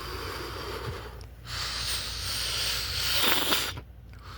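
Long, hissing, snort-like breaths from whoever is hidden inside the blanket: the blanket's "weird noises". The longest stretch runs through the middle and cuts off shortly before the end.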